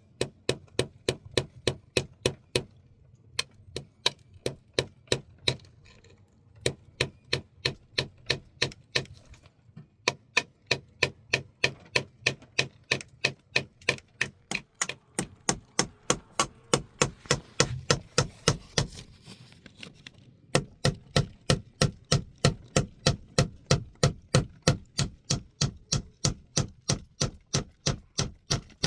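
Hammer driving nails: sharp, even strikes about two to three a second, in runs broken by a few short pauses.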